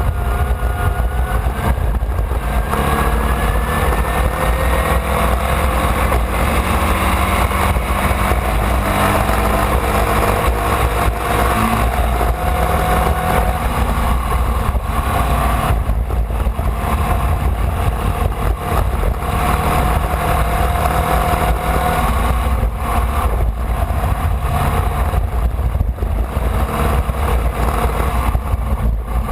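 Formula Vee's air-cooled Volkswagen flat-four engine running at racing speed, heard onboard over a heavy low rumble. Its pitch climbs slowly, drops sharply about halfway through, then climbs and dips again, as the car accelerates and shifts or lifts.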